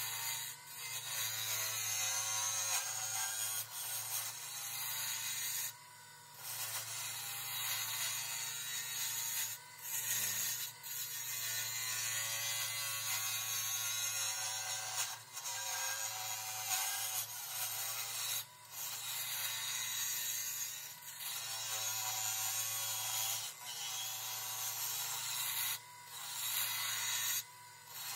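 Wood lathe running with a steady low hum while a turning tool cuts a spinning canary wood handle blank, giving a continuous scraping hiss of shavings being peeled off. The hiss breaks off briefly about eight times as the tool lifts between passes.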